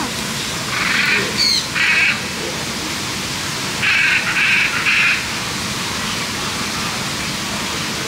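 Macaw squawking: five harsh, raspy calls in two groups, two about a second in and three around four to five seconds in. A steady rushing noise like falling water runs underneath.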